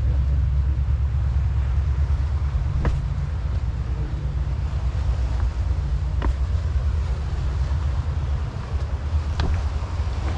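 Wind buffeting the microphone, a heavy low rumble that never stops, with three faint sharp clicks about three seconds apart.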